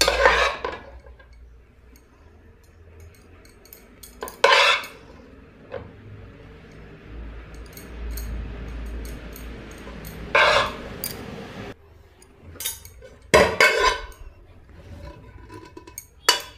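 A serving spoon scraping and clanking against metal cooking pots as cooked rice is scooped and spread out in a layer, with about five sharper clanks a few seconds apart and softer scraping between.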